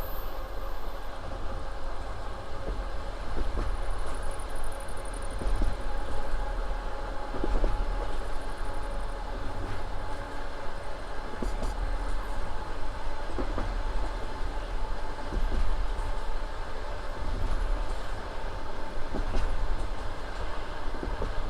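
Passenger train on the move: a steady rumble and rolling noise of the carriage wheels on the rails, with scattered, irregular knocks as the wheels run over rail joints.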